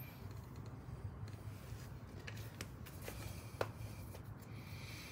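Faint rustling and light clicks of a rubber breather hose being handled and fitted around a motorcycle engine's air cleaner, with one sharper tick about three and a half seconds in, over a low steady hum.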